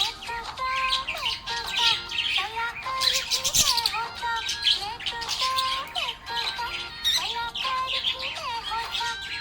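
Budgerigar chirping and chattering in fast, dense trills, over a children's song melody.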